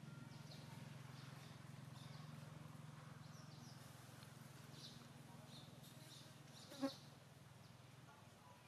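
Quiet outdoor ambience: a steady low buzz, faint scattered high chirps, and one short high call about seven seconds in. The buzz stops near the end.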